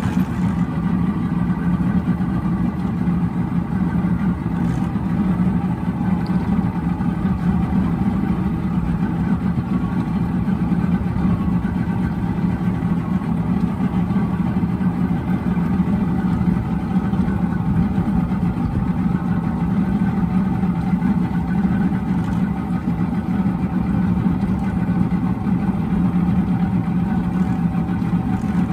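Boston Whaler Outrage's outboard engine running at a steady speed while the boat is under way, with a constant low drone and no change in pitch.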